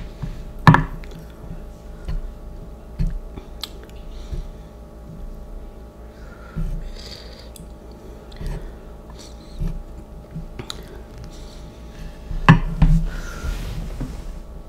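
Person eating spicy instant noodles: chewing, with scattered sharp clicks of a utensil against a bowl, the sharpest about a second in and twice near the end.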